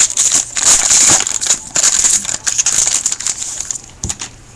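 Foil wrapper of a hockey card pack being torn open and crinkled by hand, a dense crackling that dies down after about three seconds.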